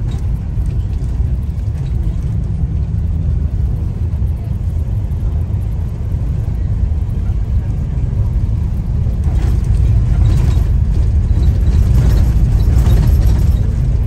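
Tour bus driving, heard from inside the cabin: a steady low engine and road rumble that grows a little louder over the last few seconds, with some light rattling and knocking.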